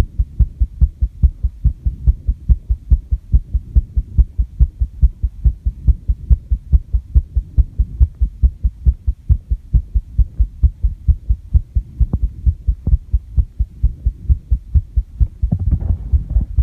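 A human heartbeat heard close up: a steady, even lub-dub rhythm, raised after squats and jumps. A rustle of handling comes near the end.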